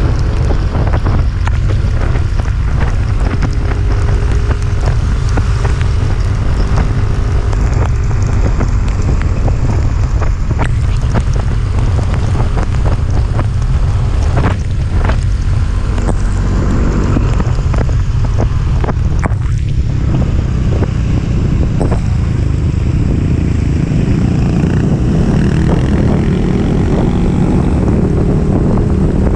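Wind buffeting the microphone over a motorcycle engine running steadily on an uphill ride, with a few scattered clicks. The engine note grows heavier in the last few seconds.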